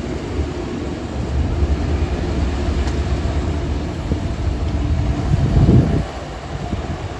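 Shantui DH17-C2 bulldozer's diesel engine running under load as it pushes sand, a steady low rumble. It swells to its loudest about six seconds in, then drops back.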